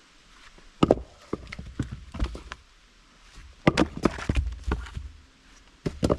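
A few dull thumps and knocks with scuffing between them, coming in clusters about a second in, around four seconds in and near the end.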